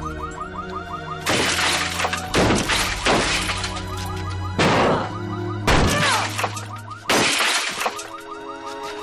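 Car windows being smashed again and again, glass shattering with each of about six blows roughly a second apart, over a music score.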